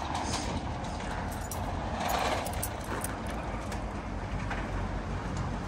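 Street noise: a steady low rumble of traffic, with a louder swell about two seconds in.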